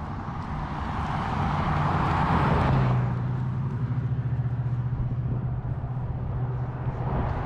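A car approaching and passing close by: tyre and engine noise builds to its loudest about three seconds in, then drops away as it passes. Another vehicle starts to come up near the end.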